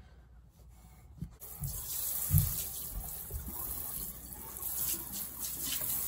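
Kitchen sink sprayer spraying a steady hissing stream of water into the sink basin to rinse it out, starting about a second and a half in. There is one low thump about two seconds in.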